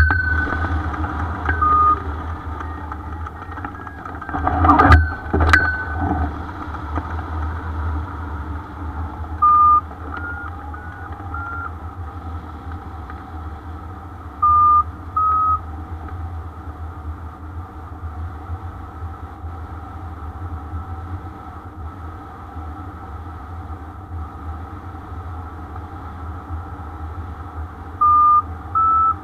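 Wind rushing over the microphone of a hang glider in flight, with a loud gust about five seconds in. Short electronic beeps from the pilot's variometer come in small groups every few seconds, stepping up a little in pitch, the sign of the glider climbing in lift.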